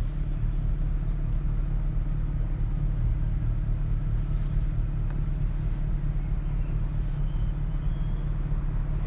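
BMW 650i's 4.8-litre V8 running at steady low revs, an even low drone with no revving, heard along with the car's tyre and road noise.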